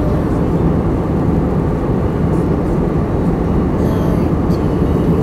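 Steady roar of an airliner in flight, its engines heard inside the passenger cabin.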